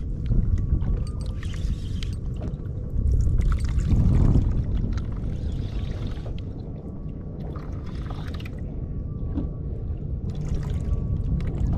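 Water slapping and gurgling against a fishing kayak's hull, in washes that come and go every second or two, over a low rumble of wind on the microphone. Scattered small clicks run through it.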